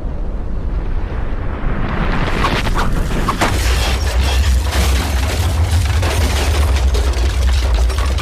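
Deep, continuous rumble of a massive explosion. A hissing roar with scattered crackles builds in about two seconds in, and the low rumble grows heavier soon after.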